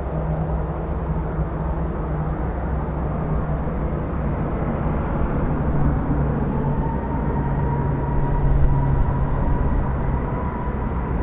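Boeing 737-800's CFM56 jet engines running steadily at low taxi thrust, a distant, even hum. A faint high whine joins it about halfway through.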